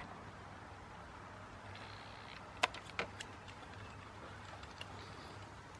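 Scissors snipping through a plastic drinking straw: one sharp snip about two and a half seconds in, then two lighter clicks just after.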